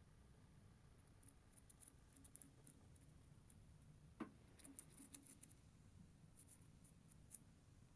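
Faint, close hand-work sounds of a small cast moulding piece being trimmed to shape: light scraping and small clicks, with one sharper click about four seconds in.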